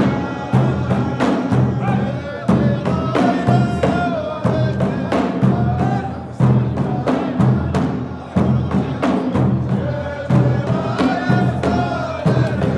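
Saudi ardah sword-dance music: a steady beat of drums under men's voices singing a chanted melody, with a heavier drum stroke about every two seconds.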